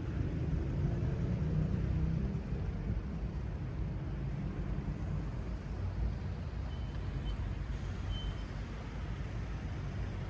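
Street traffic: a motor vehicle's engine passing in the first few seconds, then a steady traffic rumble.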